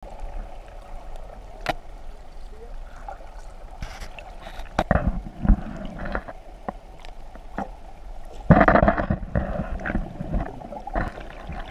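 Water sounds heard from a camera under the surface: a steady muffled wash with scattered sharp clicks. Two louder bubbly rushes of water come about five seconds in and again about eight and a half seconds in.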